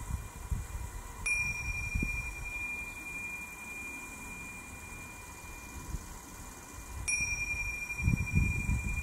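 Tingsha, a pair of small hand cymbals, struck together twice about six seconds apart, each strike ringing on in a long, high, slowly fading tone.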